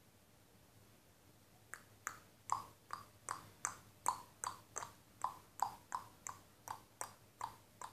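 Near silence, then from about two seconds in a steady run of short, sharp clicks, about three a second, each dropping slightly in pitch.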